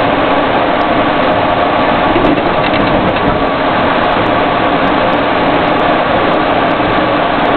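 Steady engine and road noise of an armored military vehicle on the move, heard from inside its cab: a loud, even rushing drone with a faint steady hum underneath.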